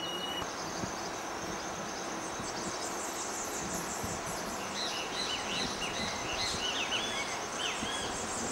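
Rainforest ambience: an insect keeps up a steady high trill, and about halfway through a bird joins in with a quick series of short, high call notes.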